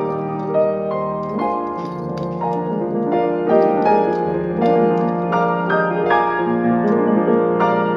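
Piano music: a melody of single notes struck one after another over steady low notes.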